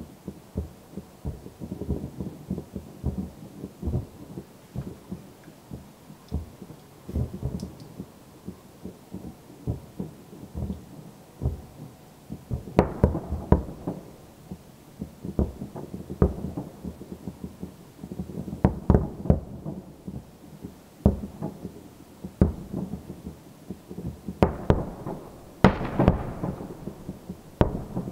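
Aerial firework shells bursting in a rapid barrage, many booms and bangs overlapping, with the loudest clusters of bangs about halfway through and again near the end.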